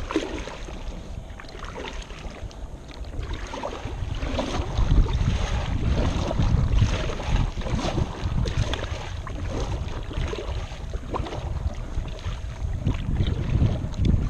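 A kayak being paddled fast across a lake: paddle strokes splash in the water while wind buffets the microphone, and the rumble grows heavier from about four seconds in.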